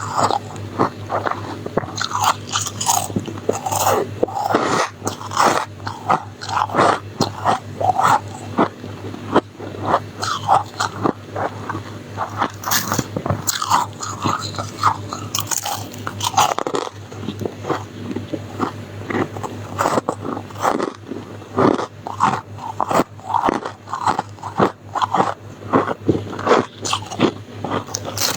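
Close-miked biting and chewing of soft, snowy freezer-frost ice: a dense, irregular run of crisp crunches, several a second, continuing steadily.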